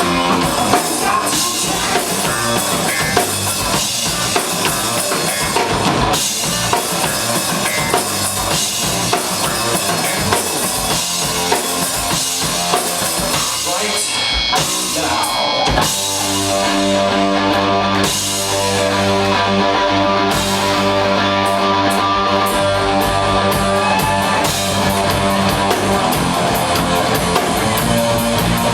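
Live rock band playing an instrumental passage on drum kit, electric guitar and bass guitar. About halfway through, the busy drumming gives way to long held chords.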